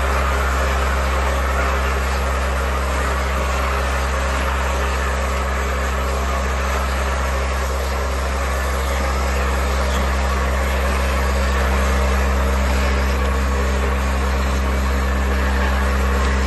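Vibratory bowl feeder running: a steady low electromagnetic hum with a continuous rattle of tubes shuffling along the vibrating spiral track.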